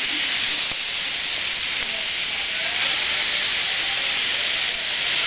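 Seasoned raw chicken sizzling on the hot plates of a George Foreman contact grill, a steady hiss.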